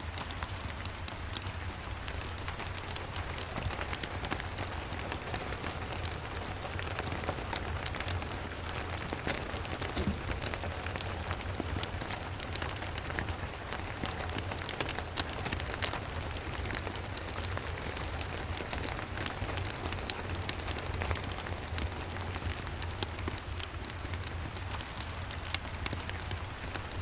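Steady rain with dense scattered drop ticks, mixed with a crackling fireplace, over a low steady rumble.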